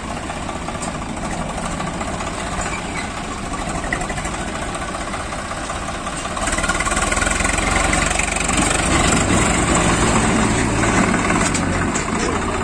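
Swaraj 744 FE tractor's diesel engine running at idle, growing louder about six and a half seconds in.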